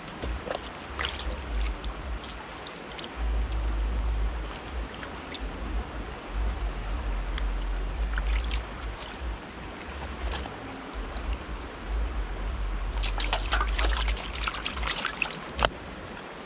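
Water sloshing and trickling in a steel bowl as a raw whole chicken is rubbed and rinsed by hand, over the steady rush of a flowing river. A quick flurry of clicks and knocks comes near the end.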